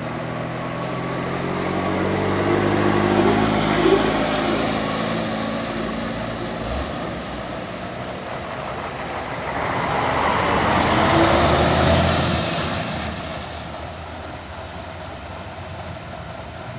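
Heavy diesel truck engine revving hard under load as the truck strains up a steep grade, swelling twice: first about three seconds in, then more noisily around eleven seconds in.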